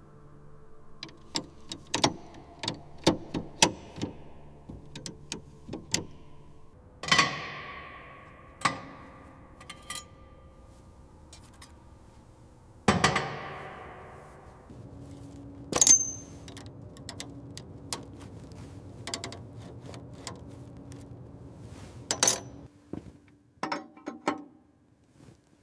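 Metal tools and parts being handled: scattered clicks and taps, with two louder ringing metal clangs, about 7 and 13 seconds in, that die away over a second or two.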